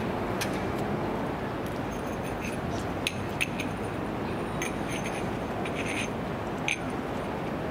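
Steady outdoor background noise with about nine light, sharp clinks scattered through it.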